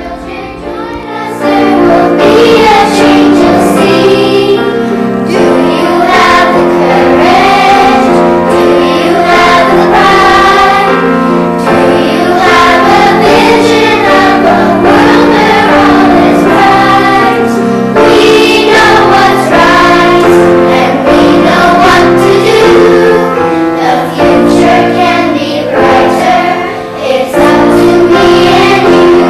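Music with a choir singing over held chords, swelling up to full volume about a second and a half in.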